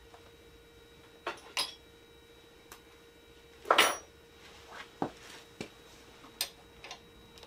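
Metal hand tools clinking and clattering as they are picked through, with a louder clatter about halfway through and a few lighter clicks after.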